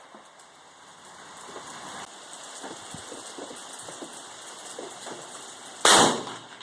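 Steady patter of rain, then a single rifle shot about six seconds in.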